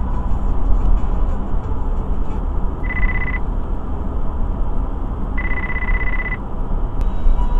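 Steady road and engine noise inside a moving car's cabin, with two high, steady electronic beeps: a short one about three seconds in and a longer one of about a second near six seconds.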